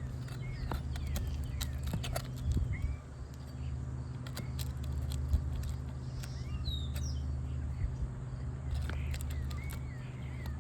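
Birds chirping, with scattered sharp clicks and scrapes of a hand tool working nails out of asphalt roof shingles, and one louder snap about halfway through, over a steady low hum.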